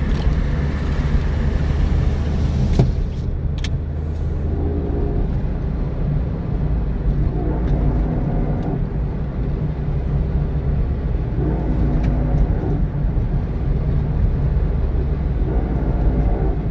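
Steady road and engine noise inside a 2003 Mazda Protege, with a droning grind that comes in four times for a second or so each. The grind sounds like a fender liner rubbing a tyre, is speed-dependent and comes only when steering left, and the left front wheel hub runs warm.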